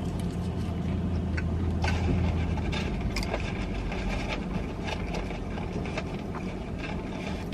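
Car engine idling, heard from inside the cabin as a steady low hum, with a few light clicks and rustles.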